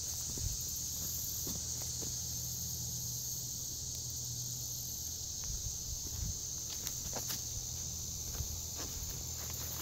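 Steady high-pitched drone of an insect chorus in summer woodland, with footsteps rustling through leaf litter and undergrowth and a few sharp clicks of twigs underfoot.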